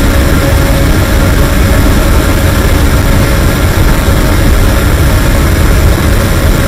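Harsh noise music: a dense, unchanging wall of loud distorted noise with a heavy low rumble and no rhythm or melody.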